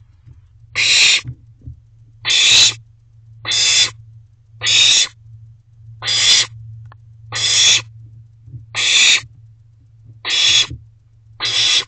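Barn owlet food-begging hisses, rasping and about half a second long, repeated evenly about once every 1.2 seconds, nine in a row, over a steady low hum.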